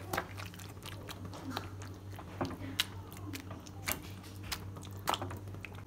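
Metal hand masher pressing through thick, soft mashed vegetable bhaji in a nonstick pan. It makes irregular wet squelches and light clicks as it taps the pan, over a steady low hum.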